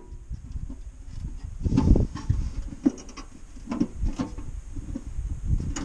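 Thin metal diverter plate being bent back and forth by hand: irregular flexing, creaking and knocking of the sheet metal, with a few short sharp strokes.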